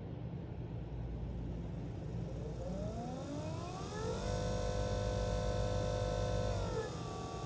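Watersnake 24 electric trolling motor, run through a PWM speed controller with its propeller spinning in air, whining over a steady low hum. About two and a half seconds in the whine climbs in pitch as the motor speeds up, holds steady, then drops back to a lower speed near the end.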